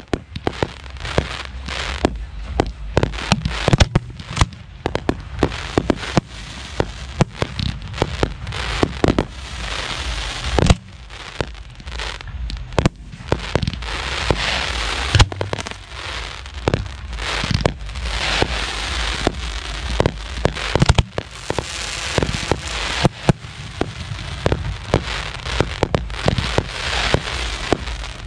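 Professional 1.3G fireworks display heard from the firing line: shells firing from mortar racks in rapid succession, many sharp reports one after another, with waves of crackling over a low rumble.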